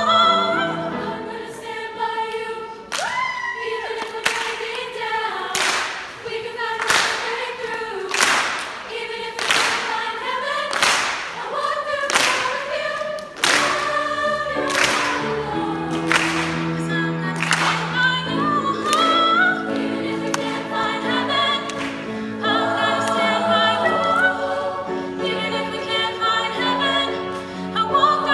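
Women's choir singing sustained chords, with a female soloist singing over them at the start and again near the end. From about three seconds in until about eighteen seconds in, a sharp beat marks time roughly every 1.3 seconds under the singing.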